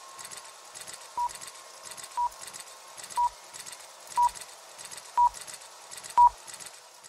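Film-leader countdown beeps: a short, high, pure beep once a second, six in all, one for each number counting down. Under them runs a faint, steady, rhythmic clatter like a film projector running.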